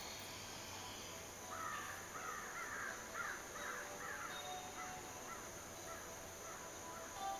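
A bird calling a quick series of short, arched notes, about three a second, starting about a second and a half in and growing fainter until they die away.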